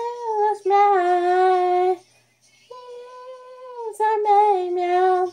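A woman singing a song with meows in place of the lyrics, in long held notes: two loud phrases with a softer held note between them.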